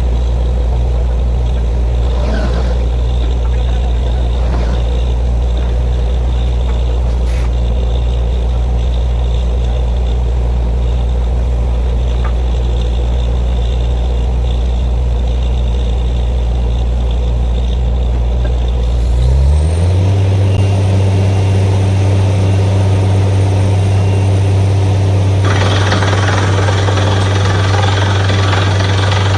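Borewell drilling rig's engine running steadily with a loud low hum; about two-thirds of the way in its pitch steps up as it revs higher, and a few seconds later a loud hiss joins in.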